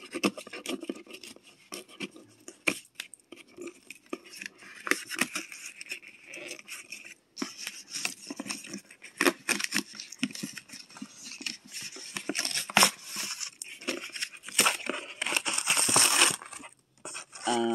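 Cardboard toy box and its plastic packaging being handled and opened: scattered taps and clicks with rustling and tearing, growing denser and louder for a couple of seconds near the end.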